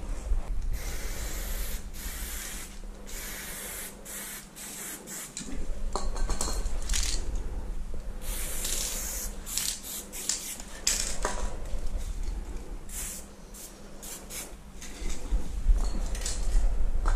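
Aerosol spray-paint can hissing in many short and longer bursts as paint is sprayed onto a wall.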